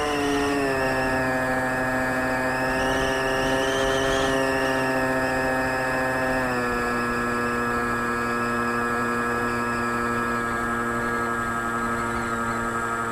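Radio-controlled flying wing's motor and propeller, heard from a camera on board, running as a steady pitched drone. The pitch steps down about half a second in and again about six and a half seconds in as the throttle is eased back.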